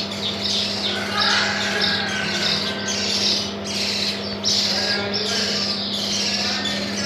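Many newly hatched Australorp and Rhode Island Red chicks peeping constantly in quick, high overlapping cheeps, over a steady low hum.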